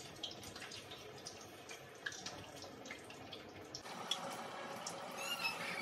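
Breaded paneer patties deep-frying in hot oil in a kadai: a steady sizzle with many sharp crackles and pops. A little under four seconds in, the crackling stops and a smoother, steady hiss goes on.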